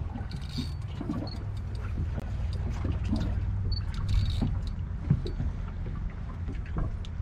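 Steady low rumble of a fishing boat on the water, with scattered light knocks and clicks.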